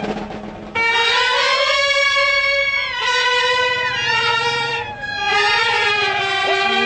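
Brass band of trumpets and a tuba playing a melody in long held notes, phrase by phrase, with brief breaks between phrases about a second, three and five seconds in.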